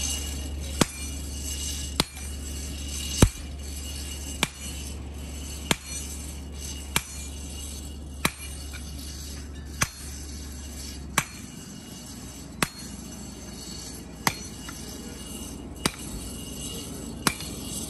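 Sledgehammer blows landing on a steel blade held in tongs on a block anvil, a striker hand-forging for the smith. Each blow is a sharp metallic clank with a short ring, about one every 1.3 seconds, some thirteen strokes in all.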